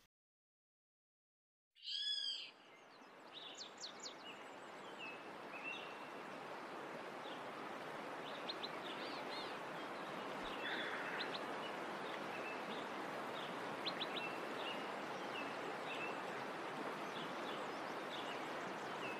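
Small birds chirping over a steady rush of falling water that slowly grows louder. The sound starts after a short dead-silent gap, with a brief loud high-pitched call about two seconds in.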